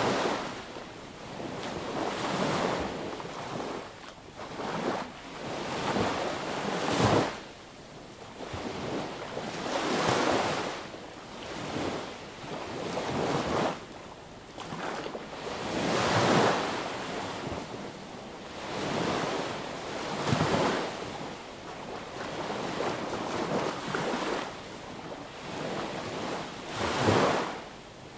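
Sea waves breaking and washing onto a beach, one after another every few seconds, each swell rising and falling away.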